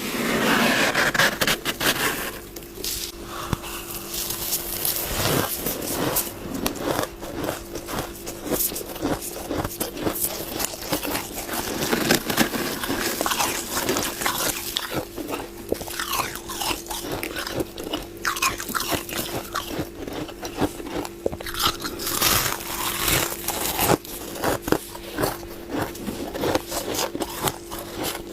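Frost being bitten and chewed: many quick, irregular crunches, over a steady low hum.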